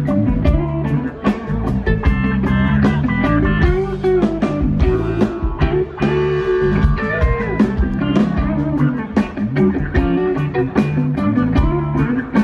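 Live band playing: a hollow-body electric guitar plays a melodic line with sliding notes over a drum kit keeping a steady beat.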